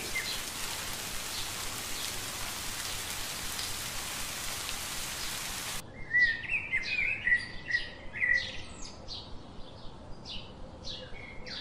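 Steady hiss of rain that cuts off abruptly about six seconds in. It gives way to birds chirping, with many short, quick chirps.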